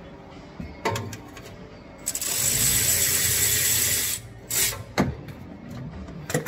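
A ratchet wrench runs steadily for about two seconds, backing a bolt out of a transmission pan. A few short metallic clicks and knocks come before and after it.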